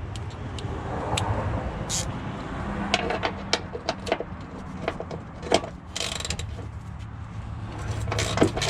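Ratchet wrench and hand tools working on car suspension bolts: scattered sharp metallic clicks and knocks, then a quick run of ratchet clicks near the end, over a steady low hum.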